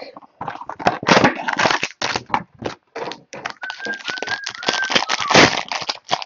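Cellophane shrink wrap torn off a small cardboard trading-card box and the plastic-wrapped cards pulled out: irregular crinkling, crackling and tearing of plastic. A few brief squeaks come about halfway through.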